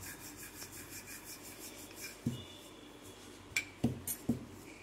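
Wooden rolling pin rolling a thin circle of maida dough on a granite countertop: a soft, rhythmic rubbing, with a few light knocks in the second half.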